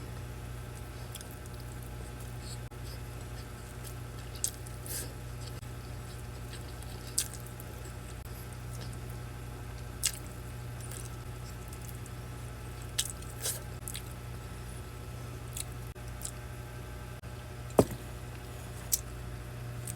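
Mukbang eating sounds: chewing and short mouth clicks, scattered every second or few, over a steady low hum. A sharper knock comes near the end.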